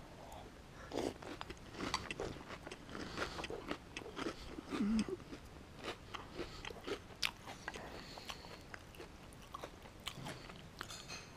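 A person chewing crunchy breakfast cereal, with irregular crunches throughout.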